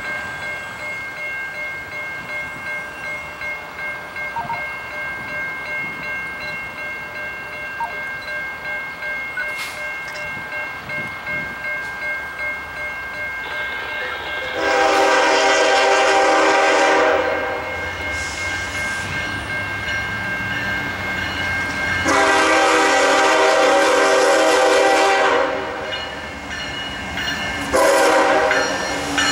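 Norfolk Southern freight train led by a GE ES44DC approaching and sounding its air horn: two long blasts and then a short one, the opening of the grade-crossing signal. The locomotives' low rumble grows louder as the train nears.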